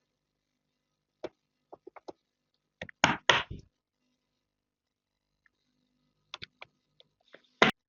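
A scattering of sharp clicks and knocks as PC components are handled and fitted, with two louder knocks about three seconds in and another near the end.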